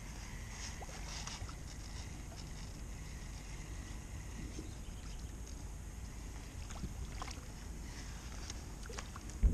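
Steady low rumble of wind and water around a small fishing boat, with faint scattered ticks as an ultralight spinning reel is worked. A single sharp knock near the end.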